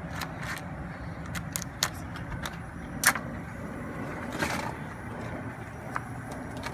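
Scattered sharp clicks and knocks from live blue crabs being handled with gloves and a metal pick and laid into an aluminium steamer pot, the loudest knock about three seconds in and a brief rustle a little after, over a steady low rumble.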